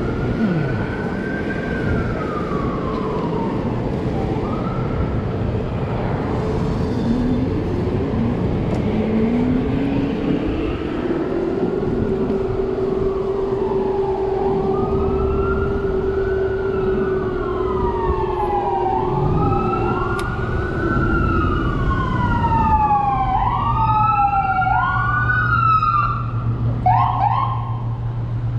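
An emergency vehicle siren wails in rising-and-falling sweeps about every two to three seconds. The sweeps come faster and overlap near the end, then break into a few short quick whoops. A lower steady tone sounds for several seconds midway, over constant road and wind noise.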